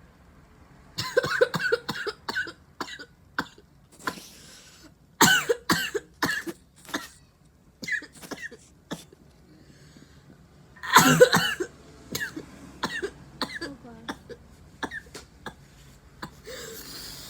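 A woman coughing in several fits of short, sharp coughs with some throat clearing, set off by the irritation of a nasal swab test. The loudest fits come about five and eleven seconds in.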